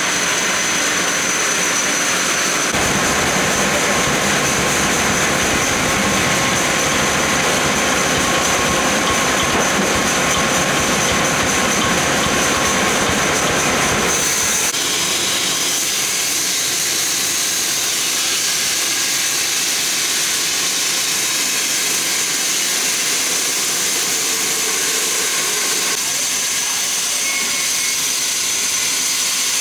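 Sawmill machinery running steadily: a dense hiss with a thin high whine. About halfway through, the low rumble drops away and the sound turns thinner and higher.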